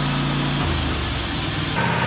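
Portable sawmill's gasoline engine running steadily; its pitch drops a little past half a second in, and near the end the sound switches abruptly to a different steady engine tone.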